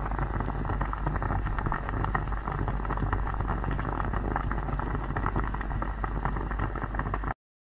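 Wind buffeting the microphone of a bicycle-mounted action camera while riding, a steady rushing rumble with light clicks from the road. It cuts off suddenly near the end.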